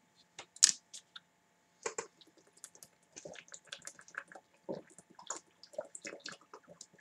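A person drinking water from a plastic bottle: a sharp click or crackle about a second in, then a run of small gulps and swallows mixed with faint crinkles of the plastic bottle.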